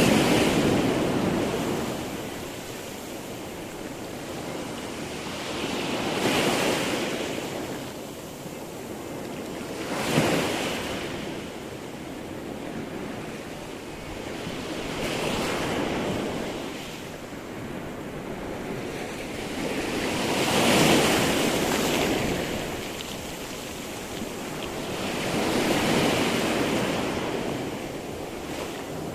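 Sea waves breaking and washing in the surf, each wave swelling to a rushing peak and then fading, about every five seconds.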